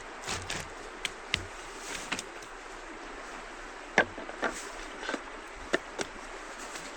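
Irregular sharp clicks and light knocks, about ten over seven seconds and loudest about four seconds in, over a steady rushing hiss.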